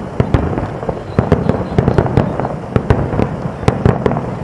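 Aerial fireworks shells bursting in a dense, irregular barrage of bangs, several a second, with a continuous rumbling echo between them.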